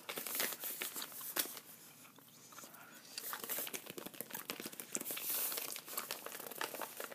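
Crinkling and rustling of a mailer envelope being handled and its flap pulled open, with a quieter pause about two seconds in.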